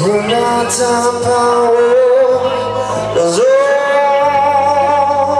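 Rock band playing live: a singer holds long notes over electric guitars and drums, with a new held note starting about three and a half seconds in.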